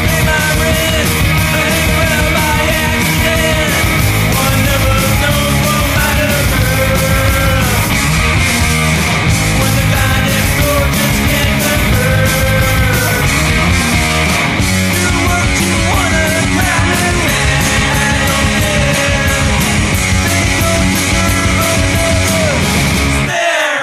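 Punk rock song played by a full band: distorted electric guitars, bass and a steady drumbeat, with a wavering pitched line over the top. The band drops out briefly at the very end.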